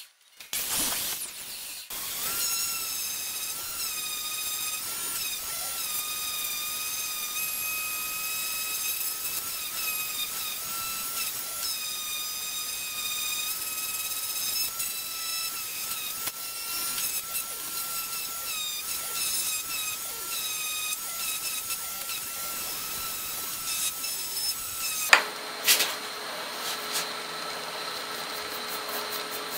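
Random orbital sander with a dust-extraction hose running steadily, a high motor whine with a slight wobble in pitch. Near the end it gives way, after a couple of sharp knocks, to a different steady hum.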